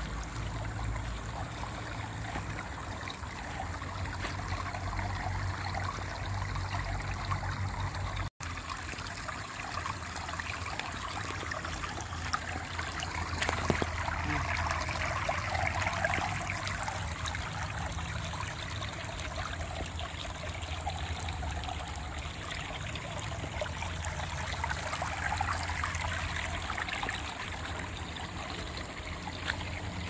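Water trickling along a narrow concrete channel, a steady running-water sound with a low rumble underneath. The sound breaks off for an instant about eight seconds in.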